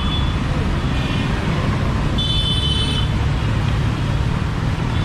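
Busy city street traffic with vehicle engines running steadily, and a brief high-pitched tone a little over two seconds in.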